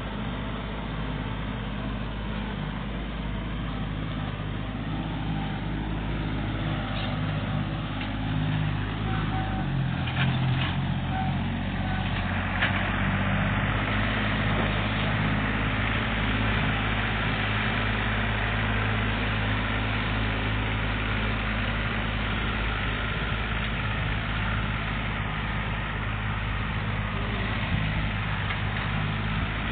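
Kubota compact tractor's diesel engine running steadily as it pulls a landscape rake, growing louder about a third of the way in as it passes close, with a few short knocks around then.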